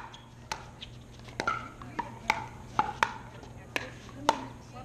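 Pickleball paddles striking a hard plastic pickleball in a quick doubles rally: sharp pocks, about eight at uneven intervals.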